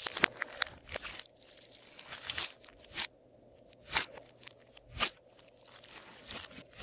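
Glossy slime squeezed and kneaded by hand, making wet crackles and sharp pops. A dense run of crackling comes in the first second, then single loud pops about once a second.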